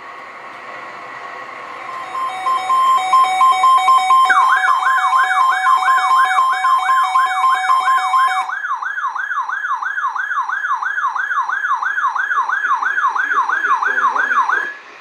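Electronic alert alarm from a weather radio receiver: rapid two-pitch beeping starts about two seconds in, and a fast yelping siren tone, about three rising sweeps a second, joins it. The beeping stops just past halfway and the siren continues until shortly before the end.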